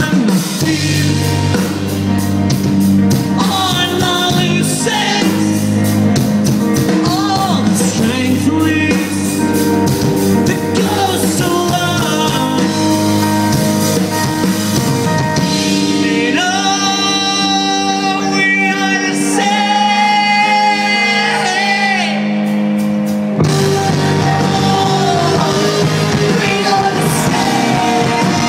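Live rock band playing: electric guitars, bass and drums under a male lead singer, with two long held sung notes in the middle.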